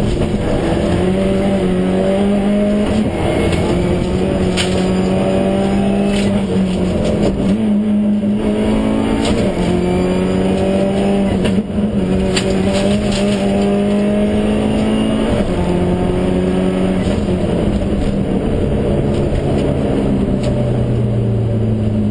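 Subaru Impreza STI rally car's turbocharged flat-four engine heard from inside the cabin under hard acceleration, the revs climbing and dropping back at each gear change, with a few sharp clicks over it. Near the end the engine note sits lower and steadier.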